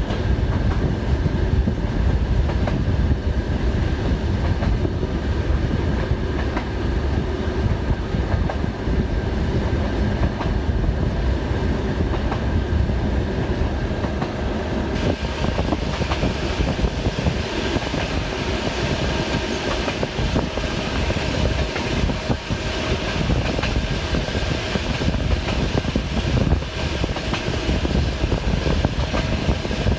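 Passenger train carriage running at speed, heard through an open window: a steady rumble of wheels on the rails. The sound takes on more hiss about halfway through.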